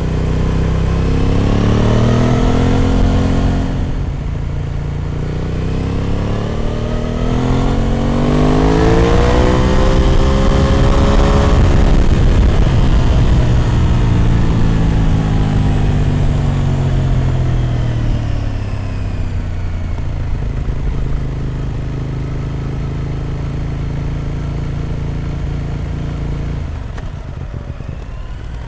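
Aprilia RS 660 Extrema's parallel-twin engine through an SC Project road-legal exhaust, heard on board while riding. The revs climb, dip briefly about four seconds in, then climb again to a peak. After that they fall away slowly and hold steady at a cruise, with a further drop near the end.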